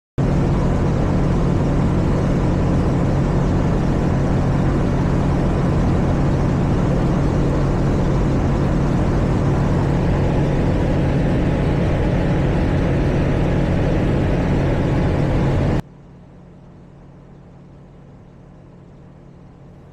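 Steady drone of the JMB VL3 Evolution's engine and propeller in flight, heard inside the cockpit, with a strong low hum. About three-quarters of the way through it drops suddenly to a much quieter steady drone.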